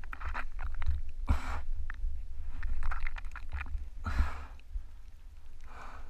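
Wind buffeting the camera microphone as a steady low rumble, with three short rushes of hiss: about a second in, near four seconds, and near the end.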